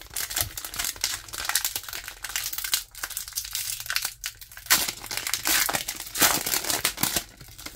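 Pokémon Scarlet & Violet 151 booster pack's foil wrapper crinkling as it is handled and torn open along the top strip, with a few sharper, louder rips around the middle and near the end.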